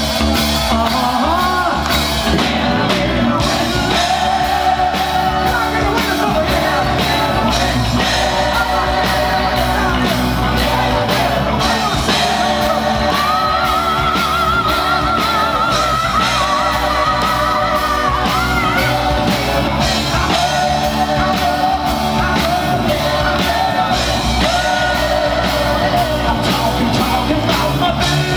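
Live rock band performing loud: a lead singer over electric bass, drums and keyboard, with a steady drum beat. A long, wavering held note sounds about halfway through.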